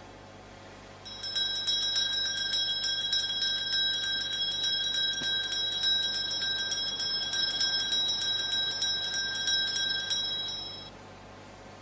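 Altar bells shaken rapidly and continuously, a steady high jingling ring that starts about a second in and stops near the end. The ringing marks the elevation of the consecrated host at Mass.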